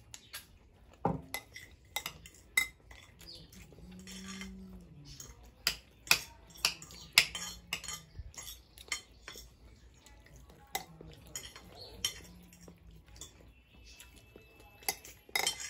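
Cutlery clinking and scraping against plates as people eat, in irregular sharp clinks.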